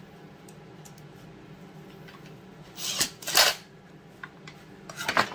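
Cordless impact driver running in short bursts, tightening the clutch back onto a Stihl MS 200T chainsaw's crankshaft: a longer burst about three seconds in and a shorter one near the end, over a faint steady low hum.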